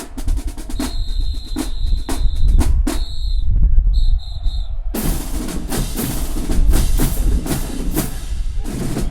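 Marching band drumline playing snare and bass drums. Sharp separate hits come first, then a dense, continuous drum cadence from about halfway. A high steady tone is held twice in the first half.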